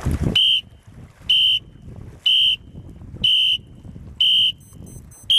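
Electronic sailing-race start timer beeping: five short, high-pitched beeps about a second apart counting down, then the long beep that signals the start, beginning near the end.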